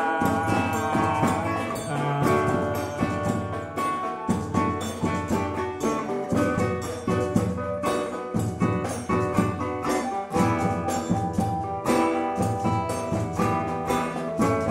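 Instrumental music: plucked-string melody over a steady percussion beat.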